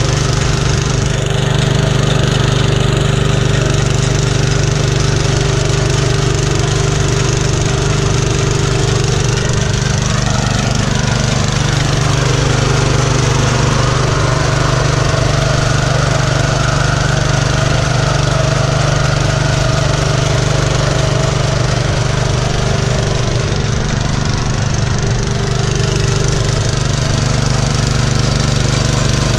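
Small single-cylinder engine of a Golden Horn 650X walk-behind tiller-ridger running steadily under load, its rotary tines churning the soil and throwing it onto the crop rows.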